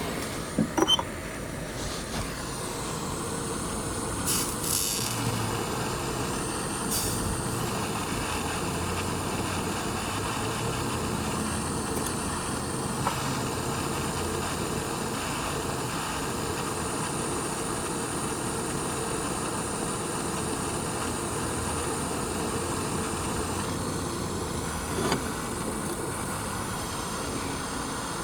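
A steady hiss with a faint high whine, broken by a few light clicks.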